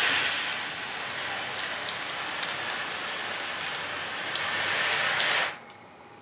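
Steady rushing hiss, like rain, with a few faint clicks, cutting off suddenly about five and a half seconds in.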